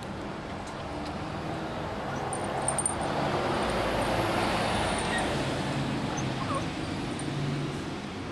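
Young puppies whimpering and yipping faintly, over a broad rushing noise that swells for a few seconds in the middle and then fades.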